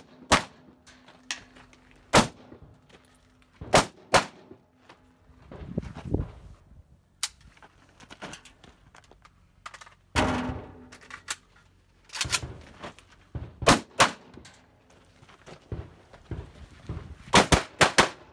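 AK-74 rifle firing single shots and pairs at irregular intervals, then a quick string of several shots near the end.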